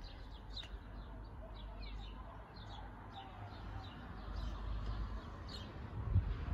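Small garden birds chirping, many short high chirps scattered throughout, over a steady low rumble.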